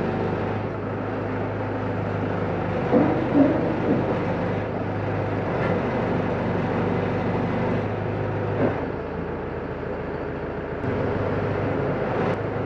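Manitou telehandler's diesel engine running steadily, with a few short knocks about three seconds in; the engine note drops back for about two seconds past the middle and then comes up again.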